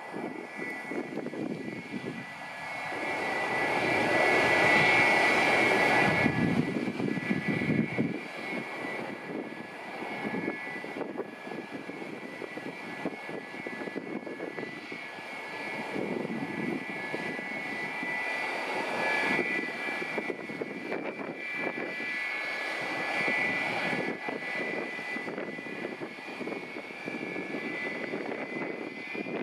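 McDonnell Douglas MD-83's two tail-mounted Pratt & Whitney JT8D-219 turbofans running at taxi power: a steady high whine over a broad rumble, swelling louder for a few seconds near the start as the jet turns onto the runway.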